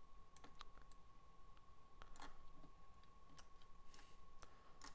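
Faint, irregular clicks of a computer mouse, several of them, against near silence with a faint steady whine underneath.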